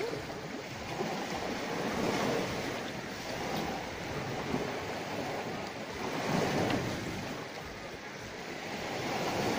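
Sea waves washing against the shore, a steady rushing noise that swells and eases several times.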